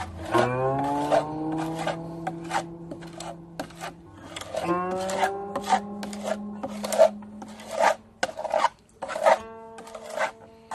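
Rasping hand strokes of abrasive work on a guqin's ash-lacquer base coat, roughly one to two a second and irregular. Under them runs plucked-string music whose notes slide upward after each pluck, twice.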